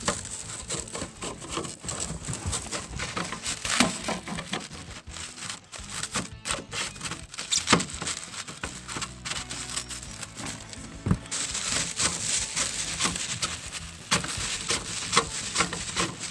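Plastic stretch wrap and bubble wrap crinkling and rustling as hands rummage through packing in a cardboard box, with irregular crackles and small knocks. It gets busier and hissier about two-thirds of the way through.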